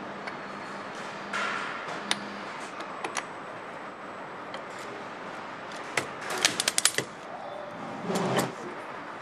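Engine-assembly station with a piston and connecting rod being set into its fixture: scattered sharp metal clicks, a quick run of about eight clicks between six and seven seconds in, and a short noisy burst a second later, over a steady background hum of factory machinery.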